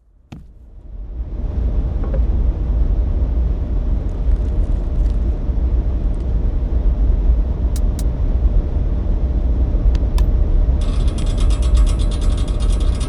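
A machine running with a steady low rumble that fades in over the first second or so, with a few sharp clicks; near the end a fast, even mechanical rattle joins it.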